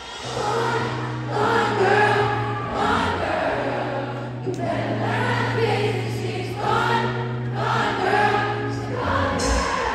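Live concert music: sung phrases over a held low bass note, the bass dropping away near the end.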